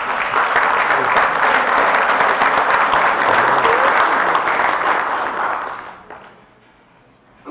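A roomful of people applauding, many hands clapping at once; the applause dies away about six seconds in.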